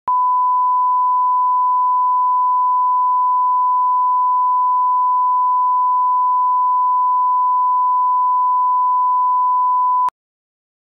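Broadcast bars-and-tone line-up tone: a single steady 1 kHz test tone, laid under colour bars at the head of a programme master for setting audio levels. It holds one unchanging pitch and cuts off sharply about ten seconds in.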